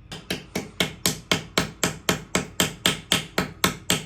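Rapid, evenly paced hammer blows, about four a second and some sixteen strikes in all, each with a short ringing tail.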